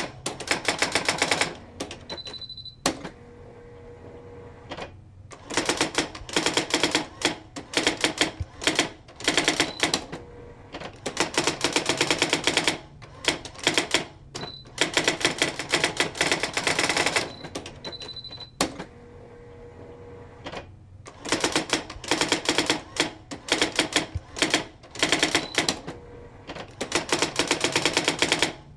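Typewriter typing in quick runs of keystrokes with short pauses between runs; a brief high bell rings a few times.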